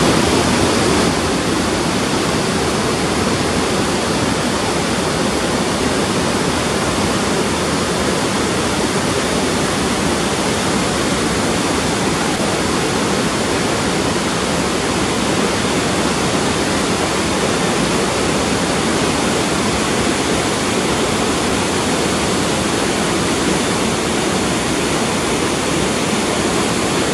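Rhine Falls: the river Rhine pouring over the falls and through white-water rapids, a loud, steady rush of water.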